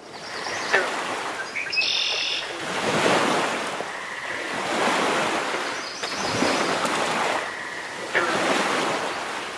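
Surf washing in, swelling and fading about every two seconds, with birds chirping now and then over it.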